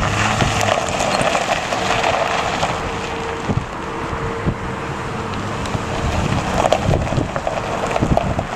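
2004 Ford F-150 pickup driving slowly over gravel: engine running and tyres on the stones, with wind buffeting the microphone.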